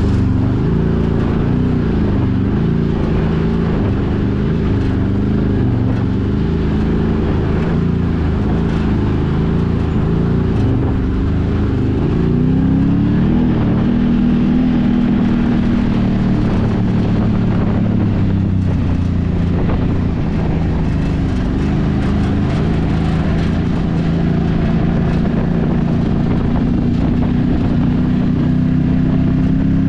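Can-Am Maverick side-by-side's engine running under changing throttle. Its pitch rises and falls repeatedly for the first half, climbs in one glide, then holds steadier.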